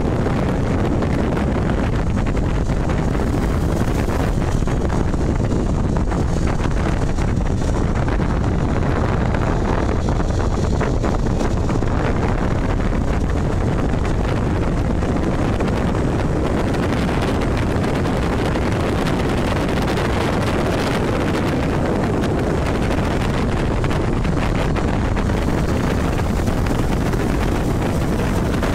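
Steady wind rush buffeting the microphone of a camera mounted on a motorcycle riding at speed along an open road, with a constant low rumble underneath.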